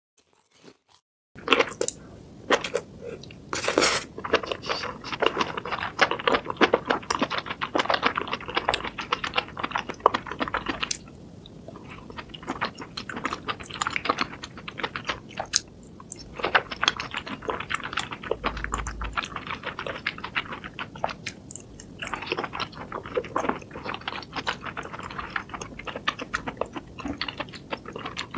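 Close-miked eating sounds of a person chewing and biting mushrooms in a spicy sauce: dense, irregular crunchy and wet mouth clicks, starting about a second in.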